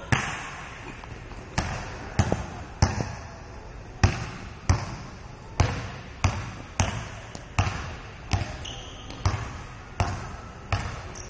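Basketball being dribbled on a hardwood gym floor: about fourteen sharp bounces at a steady walking-pace rhythm, each echoing briefly in the hall.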